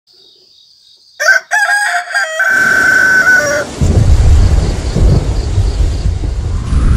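A rooster crows once, starting about a second in. Then thunder rumbles and heavy rain sets in as a steady downpour from about four seconds.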